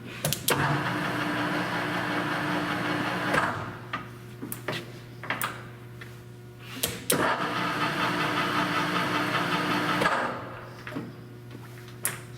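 Sharp 16" x 40" engine lathe headstock gear train running as the spindle is stepped through its speeds: it runs steadily for about three seconds, winds down, a few sharp clunks of the speed-change levers follow, then it runs again at a different speed with a higher gear tone before stopping.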